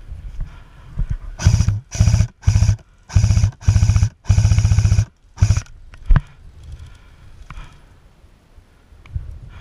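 Airsoft M4-style electric rifle firing seven short full-auto bursts in about four seconds, each burst a fast, even rattle of the gearbox cycling. A single sharp click follows.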